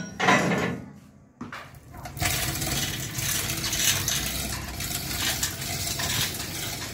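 Manual chain hoist being hauled by hand, its chain rattling through the block with a ratcheting clatter as it carries the hanging engine and gearbox. The clatter sets in about two seconds in and keeps on steadily, after a brief clank at the start.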